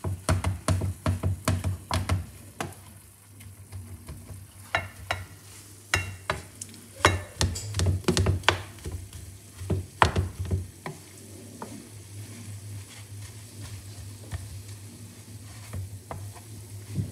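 Minced meat sizzling in a non-stick frying pan while a wooden spoon stirs and scrapes it, the spoon knocking against the pan many times, then more sparsely after about ten seconds. The mince is browning. A low steady hum lies underneath.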